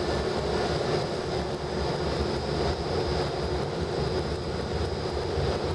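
Steady rumble of a moving airport apron bus heard from inside the cabin, with a constant high-pitched whine over it.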